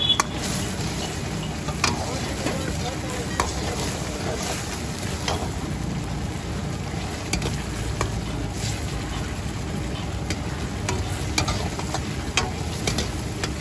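A metal ladle stirring and scraping a sizzling Manchurian sauce around a wok, with sharp clinks of the ladle against the pan every second or two.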